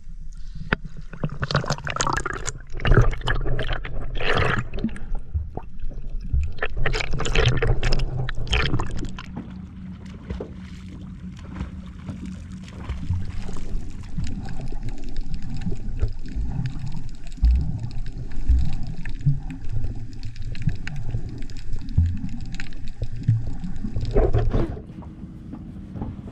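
Water splashing and gurgling, heavy and irregular for the first nine seconds or so, then settling into a lighter, steadier sloshing.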